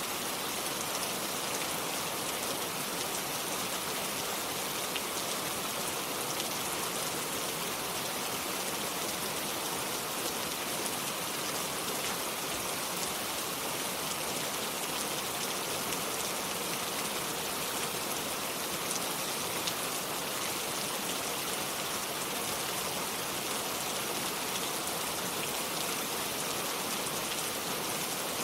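Steady rain falling without thunder, a dense even hiss with many small drop ticks.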